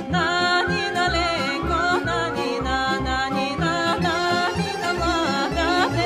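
Bulgarian folk music: an ornamented, wavering melody line, likely sung, over a steady low drum beat of about two strokes a second.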